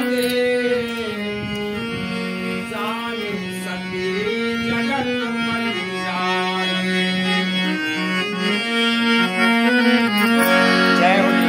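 Hand-pumped portable harmonium playing a melody, its reeds stepping from note to note over low notes held underneath.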